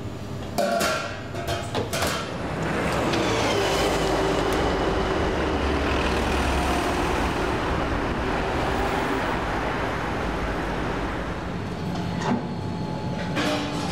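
A few clattering knocks of plastic buckets being stacked, then steady street traffic noise with a car driving past, which fades out near the end.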